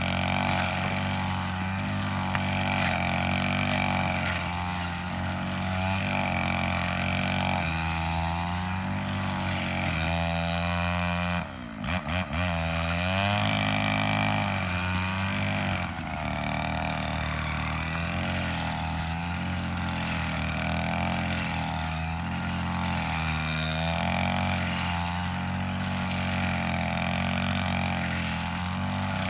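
Petrol brush cutter engine running at high speed while cutting grass, its pitch wavering up and down with the throttle and the load. About eleven seconds in the engine drops off briefly and its pitch sweeps down and back up.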